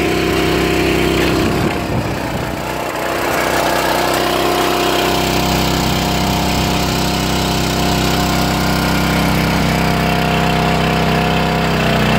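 Barreto 912 walk-behind trencher running under load, its engine driving the digging chain as it cuts a narrow trench through dry sandy soil and throws the dirt aside. The engine sound is steady, dipping briefly about two seconds in.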